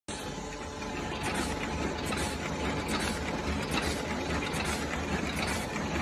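IMA C21 envelope tea bag packing machine running at production speed: a steady mechanical clatter of rapid, even clicking from its turret and crimping mechanism over a low hum.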